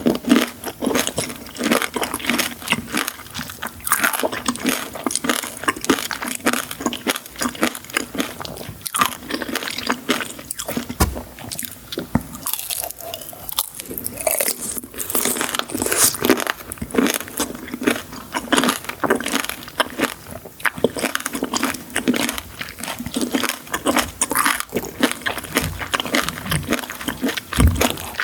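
Close-miked eating of sweets: crisp bites and steady crunching and chewing, a dense run of irregular crackles.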